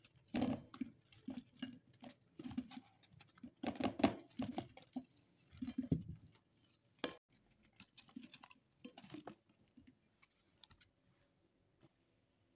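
Fresh strawberries tipped from a cardboard punnet, tumbling onto a glass plate: a run of irregular soft knocks and taps over the first six seconds, a sharp click about seven seconds in, then a few fainter taps.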